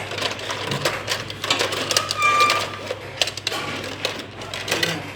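A blade scraping the end of a thin jumper wire clean, an irregular run of scratches and clicks, with a short high squeak about two seconds in.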